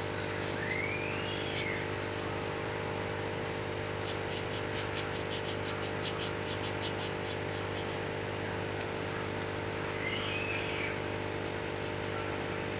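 Aquarium pump humming steadily: a low electrical hum with a higher buzzing drone above it, unchanging throughout.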